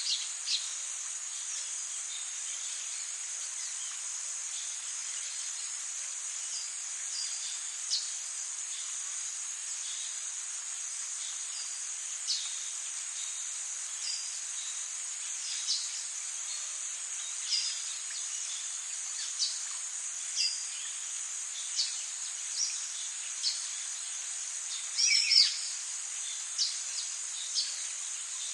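Forest ambience: a steady high-pitched drone of insects, with short bird chirps every second or two and a brief louder flurry of chirps near the end.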